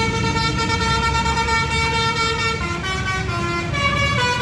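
A bus's telolet basuri musical horn plays a melody over the rumble of the bus engine. The horn holds one chord for about two and a half seconds, then runs through a quick series of changing notes.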